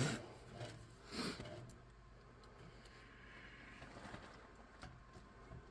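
Faint handling noises: a light knock, then a short scrape about a second in, and a few scattered ticks over a low steady hum.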